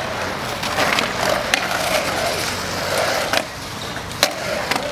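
Skateboard wheels rolling over the concrete of a bowl in a steady rumble, broken by a few sharp clacks of the board and trucks, the clearest about one and a half seconds in and twice near the end.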